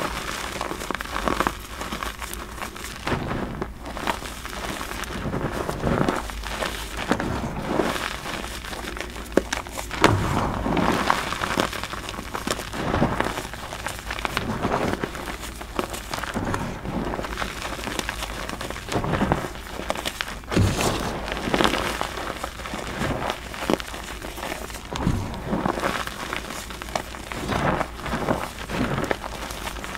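Hands crushing and raking through a tray of crumbled gym chalk: a continuous soft crunching and crumbling of powder and small lumps, with irregular sharper crunches as pieces break between the fingers.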